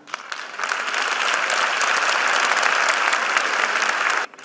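Audience applauding, building up within the first second, then breaking off abruptly near the end.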